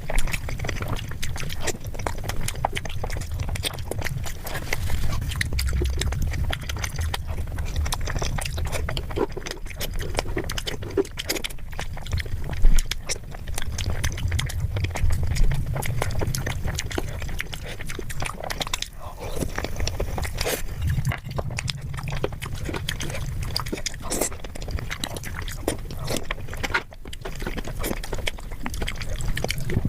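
Close-miked chewing and eating sounds: a continuous run of small mouth clicks and smacks over a low rumble, with one louder snap or bite about twelve seconds in.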